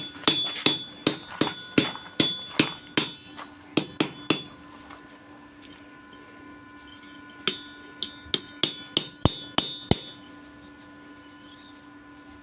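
Small hammer tapping a metal part on a little anvil, sharp metal-on-metal strikes with a ringing tone that hangs on between them. About a dozen taps come in the first four seconds, then a pause, then a quicker run of taps from about seven and a half to ten seconds in.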